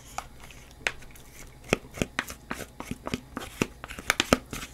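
A quick, irregular run of light, sharp clicks and taps of utensils against dishes, sparse at first and thickening in the second half.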